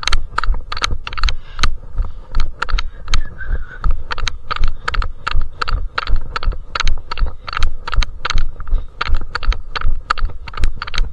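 A trail runner's footsteps on a mountain path, a steady run of sharp footfalls about three a second, with a low thud under each stride.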